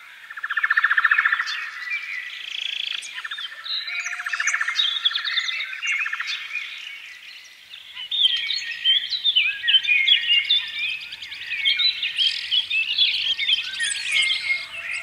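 Birdsong from several birds: fast trills during the first six seconds or so, then a dense run of short chirps and whistles from about eight seconds on.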